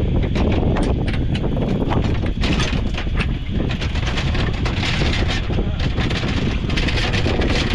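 Boat under way while trolling: steady wind rumble on the microphone over an outboard motor, with spells of water hissing past the hull and scattered clicks and knocks.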